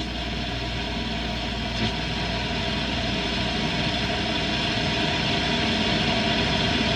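Shortwave static from a vintage Norelco Bi-Ampli tube radio's loudspeaker as the dial is tuned between stations in the 31-metre band: a steady hiss over a low hum, with no station coming through.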